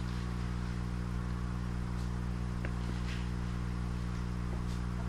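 Steady electric hum of air pumps aerating the hydroponic tanks, with a few light taps from plastic containers being handled.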